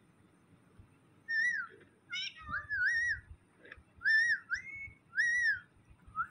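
Rose-ringed parakeet (Indian ringneck) giving a series of about six short whistled calls, each rising and then falling in pitch, starting about a second in.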